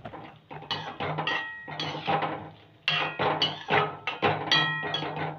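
Perforated metal ladle scraping and clinking against a metal kadai while stirring fried boondi through sugar syrup. The strokes come irregularly, denser in the second half, several leaving a short metallic ring.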